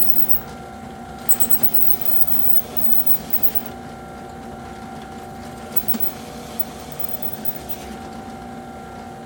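Skil benchtop drill press running steadily as a hole saw is fed into an aluminum panel: a constant motor hum with a few short high chirps about a second in and a single click near the six-second mark.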